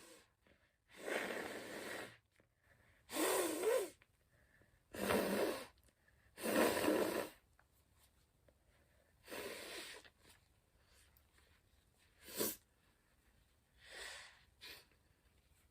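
A person blowing a nose full of runny mucus hard into a tissue, in a series of long, noisy blows. Shorter, weaker blows come near the end.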